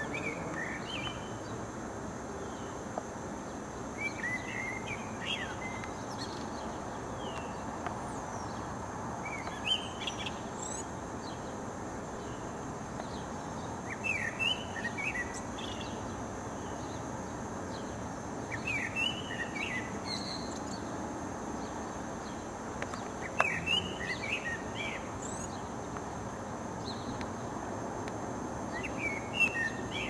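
Male common blackbird singing from a rooftop: short warbled phrases of quick rising and falling notes, one every four to five seconds, over a steady low background noise.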